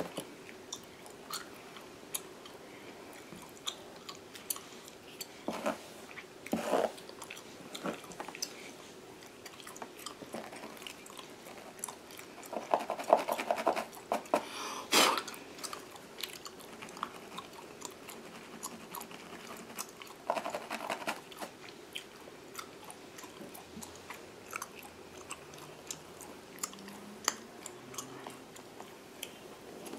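Gum chewed close to the microphone, with irregular wet smacks and clicks coming in clusters, over soft scratching of fingernails through a mannequin head's synthetic hair.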